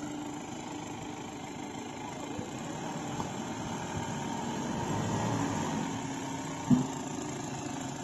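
Mahindra Bolero SUV's engine idling steadily, swelling a little in the middle, with one sharp knock about two-thirds of the way through.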